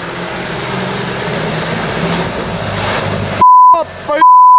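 UAZ-469 fording a river, its engine running under load and water rushing and splashing around it, the noise building. About three and a half seconds in, two loud censor bleeps of one steady pitch cut over it, a short one then a longer one, with a snatch of a voice between them.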